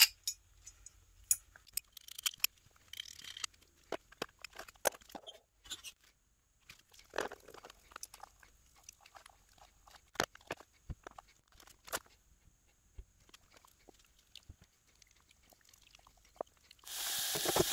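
Gloved hands handling cast-iron block plane parts in a plastic tub while brushing on a gel paint stripper: scattered small clicks, taps and soft crackly dabs. A steady hiss comes in near the end.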